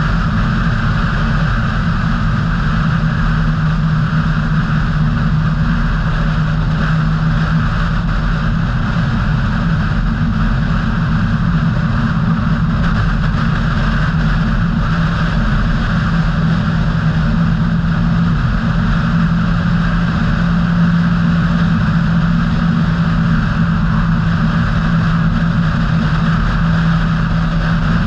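A car driving steadily along a road: an even mix of engine and road noise with a constant low hum, holding the same speed throughout.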